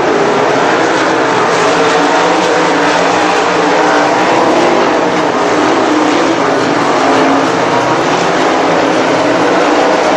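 A field of 360 winged sprint cars racing, their V8 engines running together at high revs in a loud, steady mix.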